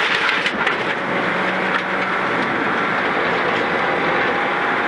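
Rally car driven flat out on a gravel stage, heard from inside the caged cockpit: the engine running hard under a steady rush of tyre and gravel noise, with a few sharp ticks near the start.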